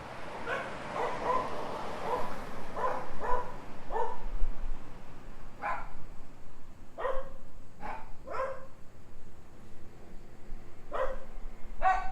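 A dog barking: a quick run of barks in the first four seconds, then single barks every second or two.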